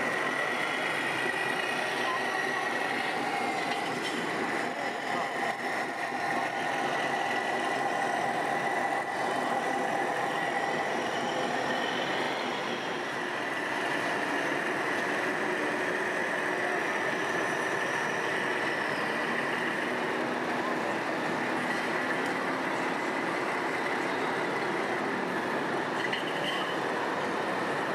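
Steady din of a busy exhibition hall: scale RC trucks running with their engine noise over a background murmur of visitors' voices.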